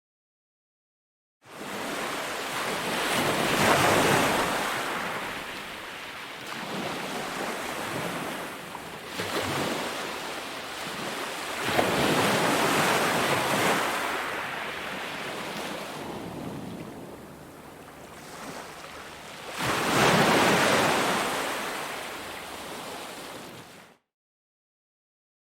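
Ocean surf on a beach: waves break and wash in as three swells of rushing noise about eight seconds apart. The sound cuts to dead silence for about a second at the start and again near the end.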